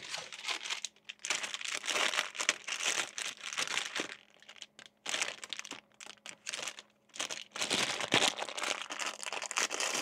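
Crinkling of a silvery anti-static plastic bag being handled and opened, in irregular bursts with short pauses between.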